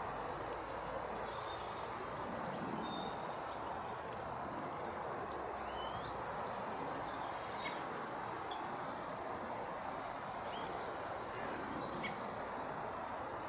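A few short, high bird chirps scattered over a steady background hiss, the loudest a single brief chirp about three seconds in.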